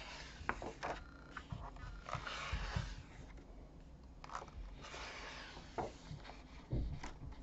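Thick paper pages of a colouring book turned by hand: about three soft swishes of paper sliding and flipping over, with a few light knocks.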